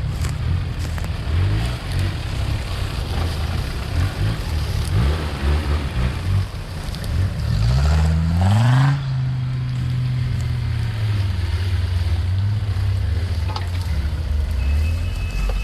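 Off-road 4x4 engine running under uneven throttle, then revving up sharply in a rising pitch a little past halfway, and holding a steady higher speed afterwards.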